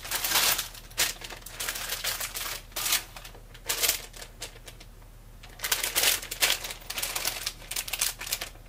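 Clear plastic bags crinkling and rustling while plastic Gunpla kit runners clack against each other as bagged runners are shuffled through and one is lifted out. There is a quieter lull of about two seconds a little past the middle.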